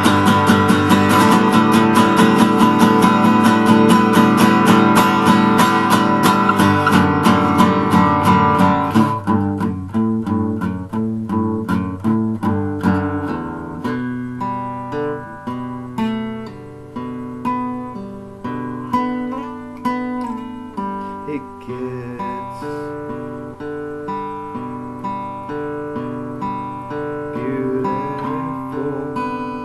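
Acoustic guitar played solo: fast, steady strumming for about the first nine seconds, then slower, quieter picked chords and single notes.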